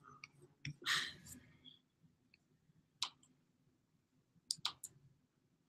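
Faint, scattered clicks from someone working at a computer: a single click about three seconds in, then a quick cluster of three about a second and a half later, with a soft, brief noise about a second in.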